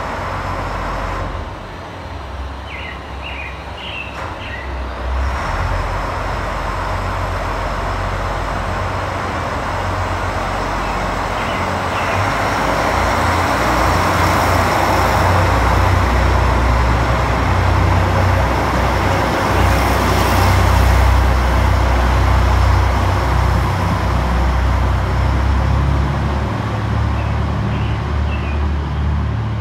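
JR Shikoku 1000 series diesel railcar's engine working hard as the train pulls away from the platform and its cars run past, a deep throb and running noise that grow louder about halfway through and ease slightly near the end.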